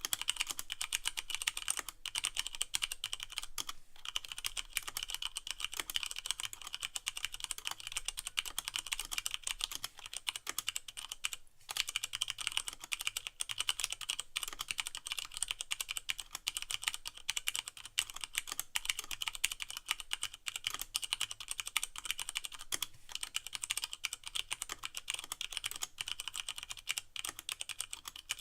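Steady fast typing on a Leopold FC660M mechanical keyboard with Cherry MX Brown switches and no O-rings, so the keycaps bottom out plastic on plastic with a sharper clack. A brief pause comes a little before halfway through.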